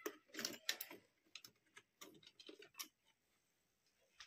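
Faint clicks and light taps of a toothbrush and toothpaste tube being handled and taken out of a plastic holder, a quick run of them over the first three seconds.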